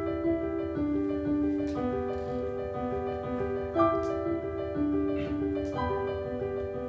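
Piano playing the introduction to a musical-theatre song: a flowing figure of sustained, overlapping notes before the voice comes in.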